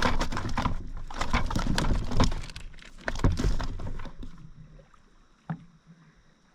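Knocking and clattering of gear being handled in a kayak, a quick run of knocks with low bumping that fades out after about four seconds, then one sharp click near the end.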